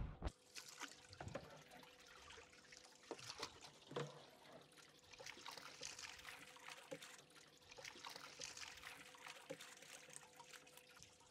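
Faint splashing and trickling of water as a dip net is swept through a boat's live bait well to scoop up bait fish, water dribbling from the mesh as it is lifted, with a light knock about four seconds in.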